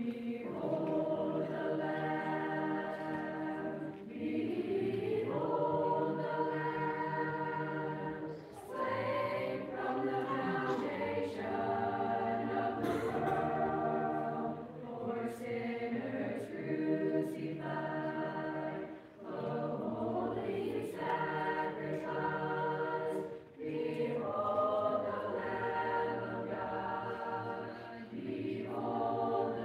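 Mixed-voice youth choir of boys and girls singing a hymn a cappella, in phrases broken by brief breaths roughly every four seconds.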